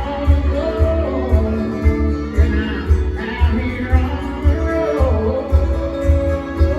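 A band playing a country song with a sung vocal over guitar, and a steady low drum beat about twice a second.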